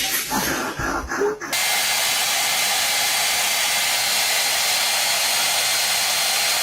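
A steady, even hiss that comes in abruptly about a second and a half in and holds at a constant level, after a brief moment of voice-like sounds.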